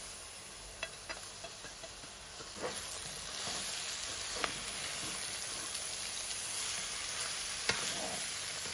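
Shredded chicken sizzling in hot olive oil with fried onions in a nonstick pan, the sizzle growing louder about three seconds in. A few light knocks come as the chicken is tipped in and stirred with a spatula.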